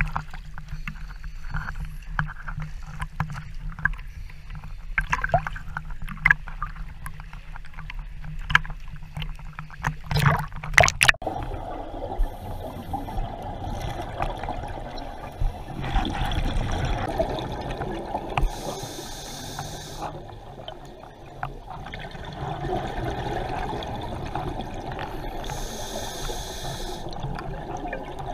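Water slopping and splashing against a camera housing held at the surface, then, after a sudden change about 11 seconds in, the muffled underwater wash heard through the housing, with several short bursts of hiss from divers' exhaled regulator bubbles.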